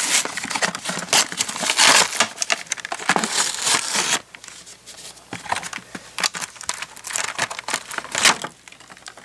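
Paper-faced cardboard backing tearing and peeling away from a clear plastic blister pack, with loud crinkling of the plastic, for about the first four seconds. Then quieter plastic crinkles and clicks as the open blister tray is handled, with one sharper click near the end.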